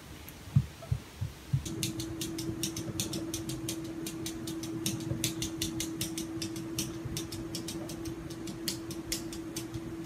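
A few soft thumps of a cat's paws patting a mirror. Then a rapid, irregular clicking of a cat's claws tapping on mirror glass over a steady low hum.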